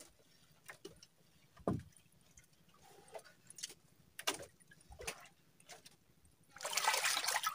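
Scattered light knocks and clicks on a small fishing boat, then about six and a half seconds in a louder rush of splashing water, as from a catch being hauled out of the sea.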